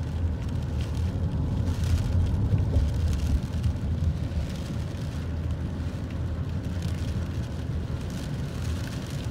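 Steady low rumble of wind and road noise inside a moving car's cabin during a windstorm, with faint rain patter on the car.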